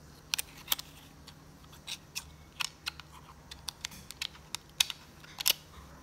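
A string of irregular sharp clicks and ticks, about a dozen, over a faint low hum.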